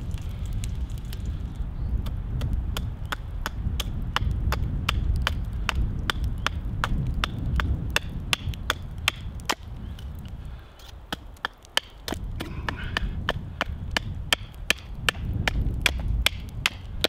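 A knife being batoned into a log: repeated sharp wooden knocks on the blade's spine, about two to three a second, with a brief lull about halfway through. A low rumble runs underneath.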